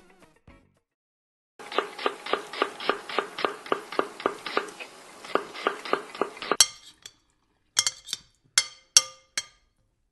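A fast, even run of clinks, about five a second, lasting about five seconds, like a hard utensil striking glass or china. After a short pause come five separate clinks.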